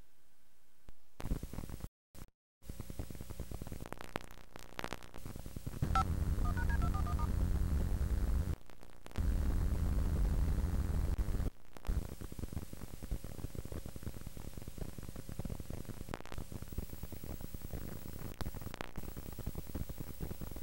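Hiss and low hum of a VHS tape starting to play in a VCR, cutting out completely a couple of times early on. From about six seconds in it gets louder with a low buzz, drops out briefly twice, then settles to a steady hiss.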